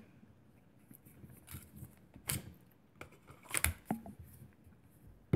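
Hard plastic clicks and knocks from handling an airsoft G17 pistol in a polymer retention holster: a few sharp, separate clicks, with a dull knock about three and a half seconds in.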